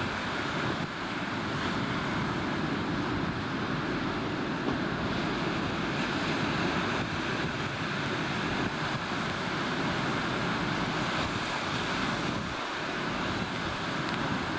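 Steady wind rushing over the microphone, mixed with the wash of a rough, choppy sea.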